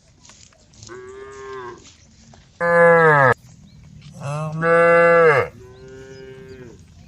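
Cattle mooing: four long calls in a row, the middle two loud and dropping in pitch as they end, the first and last fainter.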